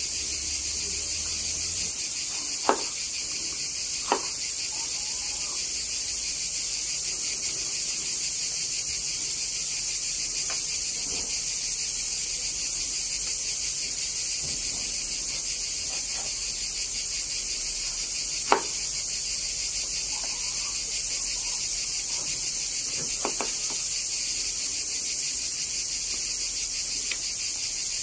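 Steady high-pitched chorus of crickets, with a few sharp knocks of a kitchen knife through vegetables onto a wooden cutting board.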